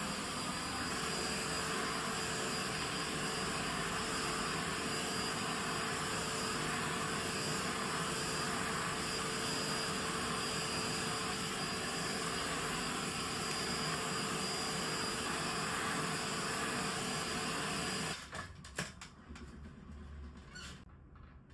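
Vacuum cleaner running steadily while cleaning air-conditioner filters, then switched off about three seconds before the end. A few light clicks follow.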